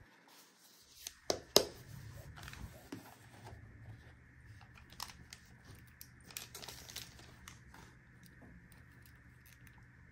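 Gloved hands handling sunglasses and their case: two sharp clicks about a second and a half in, then scattered light clicks and rustling as the plastic frame's temples are unfolded, quieter near the end.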